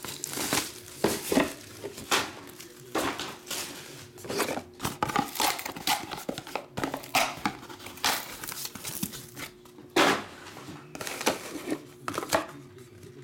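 A cardboard trading-card box being opened and handled, with its plastic wrapper crinkling: irregular rustles, scrapes and knocks of cardboard being lifted and set down.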